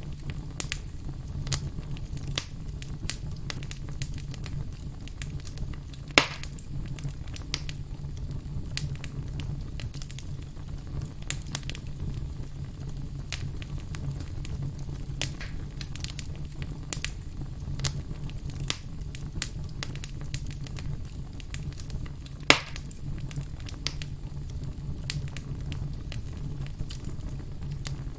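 Burning firewood crackling, with irregular snaps and pops of the logs and two louder pops, about six seconds in and again past twenty seconds, over a low steady rumble.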